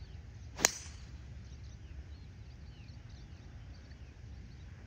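Golf driver swung and striking a ball off the tee about half a second in: a quick swish and a single sharp crack. Faint bird chirps follow.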